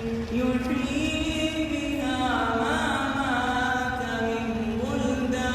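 A man's voice singing an unaccompanied Arabic nasheed, holding long, ornamented notes that slide up and down in pitch, over a steady low background rumble.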